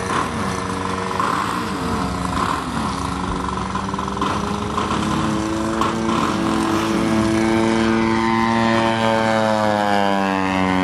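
BME 110cc two-stroke petrol engine and propeller of a giant-scale radio-control Yak 55SP aerobatic plane, its pitch rising and falling with the throttle through the manoeuvres. Near the end the pitch drops as the plane passes low and close.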